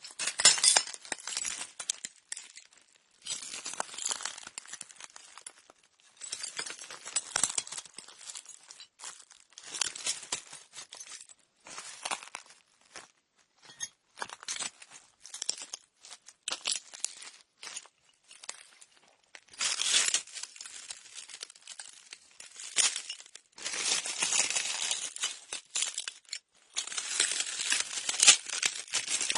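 Slow footsteps crunching over broken glass: each step grinds and crackles the shards underfoot, with short, uneven pauses between steps.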